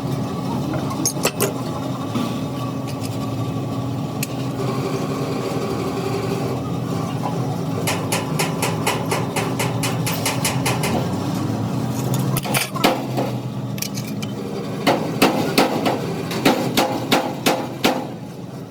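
Hammer blows on steel in bursts: a couple of strikes early, a fast run of lighter taps, then a string of louder blows about half a second apart near the end, over the steady hum of a running engine or motor.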